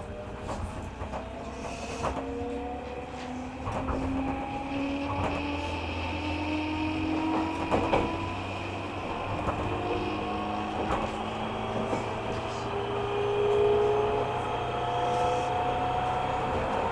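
205 series electric train heard from inside the passenger car, running and picking up speed: its traction motors and gears whine in several tones that climb slowly in pitch over the low rumble of the wheels on the rails. A few sharp knocks come from the wheels over rail joints.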